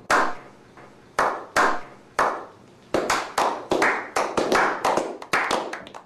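Slow clap by a small group: single hand claps about a second apart, quickening from about three seconds in as several people clap together.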